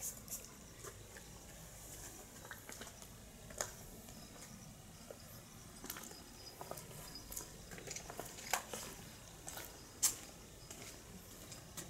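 Faint, irregular small clicks and rustles of a kitten nosing and mouthing a fabric plush fish toy, with a few sharper clicks scattered through.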